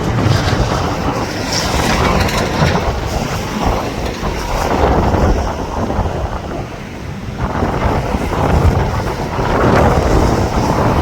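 Strong gusting wind blasting the phone's microphone, a loud rumbling noise that swells and eases, dipping about seven seconds in before building again.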